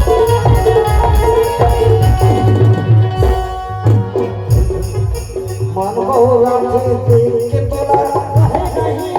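Instrumental passage of Indian folk music: hand-drum strokes under a sustained melodic instrument line. The drums drop out briefly about three seconds in, and the melody wavers on its own for a while after.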